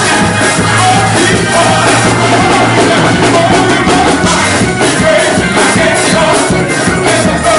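A gospel choir and a lead singer singing loudly over a steady, up-tempo beat.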